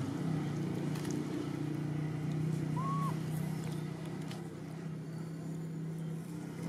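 A steady low hum, with one short chirp that rises and falls about three seconds in.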